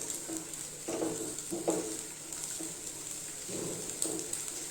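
Cashew pieces and raisins sizzling gently in hot ghee in a kadai, a steady frying hiss. A few faint brief tones sound behind it, the clearest about a second and a half in.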